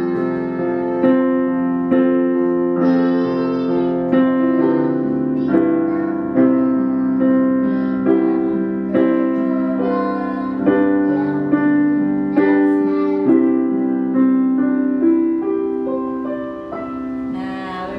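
Digital piano accompaniment, with chords struck in an even rhythm, while a girl sings along in a vocal exercise. The playing softens near the end.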